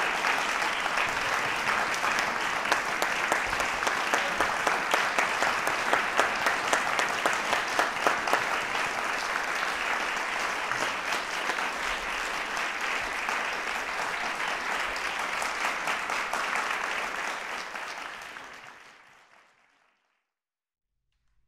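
Audience applauding, dense steady clapping that fades out near the end.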